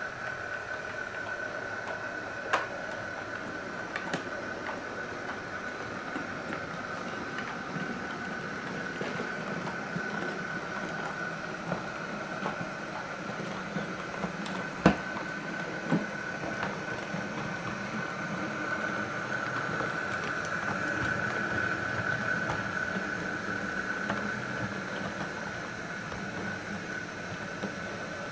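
Small electric motor of a model railway diesel locomotive running steadily with a constant high whine and low hum as it hauls a train, with scattered clicks from the wheels on the track and one sharper click about halfway through.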